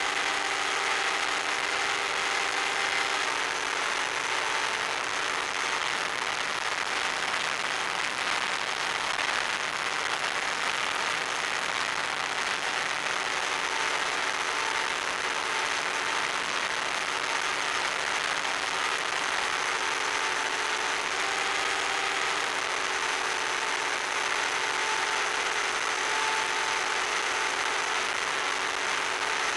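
Electric motor and propeller of an FPV radio-controlled plane running steadily in cruise, heard from on board as a steady drone of several tones under an even hiss.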